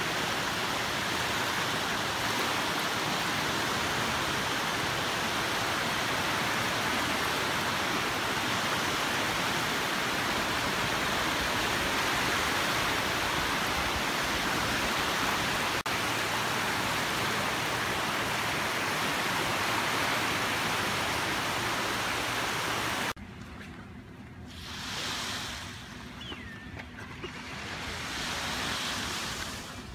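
Small waves breaking and washing up a sandy beach: a loud, steady rush of surf. About 23 seconds in it cuts to much quieter water with two soft swells of wash.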